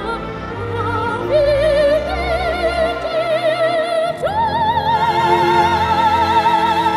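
Background music: an operatic voice singing with wide vibrato over orchestral accompaniment, leaping up to a long held high note about four seconds in.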